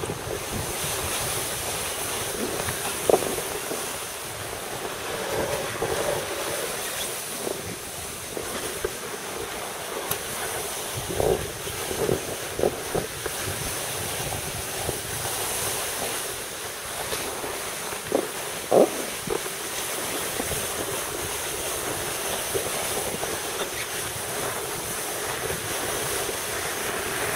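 Steady wind rushing over the camera's microphone on an open ski slope, with a few short thumps scattered through.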